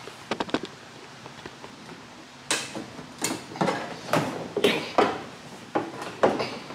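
Handling noise from a C6 Corvette hood being lifted off its hinges by one person: a few light clicks at first, then, from about two and a half seconds in, a run of short knocks and scrapes in quick succession.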